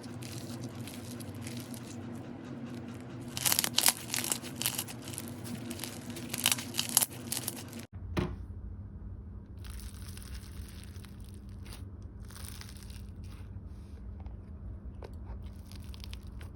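Crunchy butter slime being mixed and squeezed by hand, giving crisp crunches and bubble pops, loudest in two bursts around the middle, with a sudden change in background about eight seconds in.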